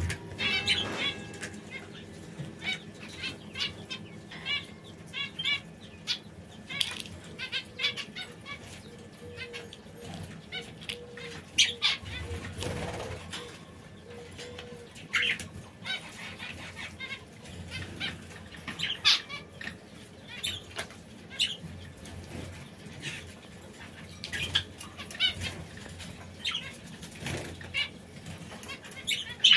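Caged canaries moving about an aviary, with scattered wing flutters and short chirps.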